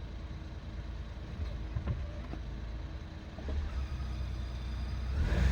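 Suzuki Jimny JB23W's small three-cylinder engine running with a low, steady rumble, louder about five seconds in. The owner is recording it for a squealing noise that comes from the clutch when the pedal is pressed.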